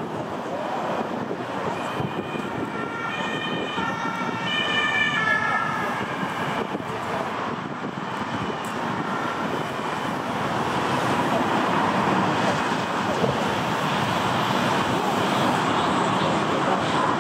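Airbus A380-861's four Engine Alliance GP7200 jet engines roaring through touchdown and rollout. The noise swells about ten seconds in. A few seconds in, a stepped, alternating tone like a distant two-tone siren sounds for several seconds over the jet noise.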